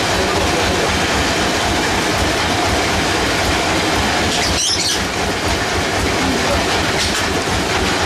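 Sawmill machinery running loud and steady with a fast rhythmic rattle, and a brief high squeal about five seconds in.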